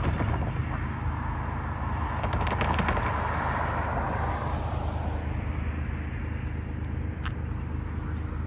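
Cars driving past on a road, their tyre and engine noise swelling in the first few seconds and then fading, over a steady low rumble.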